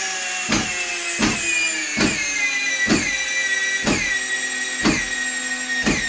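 Electric drill driving a 3-inch Phillips-head wood screw into a solid wood stud. The motor whine slowly sinks in pitch under the load, broken by seven sharp clicks as the standard Phillips bit slips out of the screw head.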